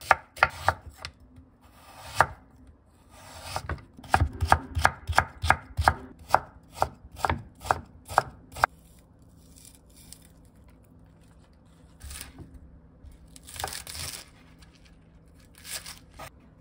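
Chef's knife chopping vegetables (onion, carrot, scallions) on a wooden cutting board, each stroke a sharp knock. It goes in quick even runs of about two to three strokes a second, then a few scattered cuts and a short scrape near the end.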